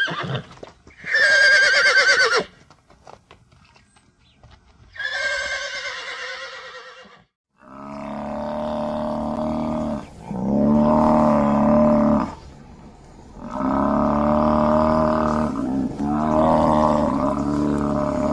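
Two high, wavering whinnies from the horse pasture, then four long, low, steady calls from a blue wildebeest, each lasting two to three seconds.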